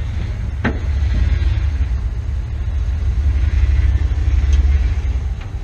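Low, steady rumble of a lifted pickup truck's engine as it crawls up a rock ledge, swelling a little near the end. A single sharp knock under a second in.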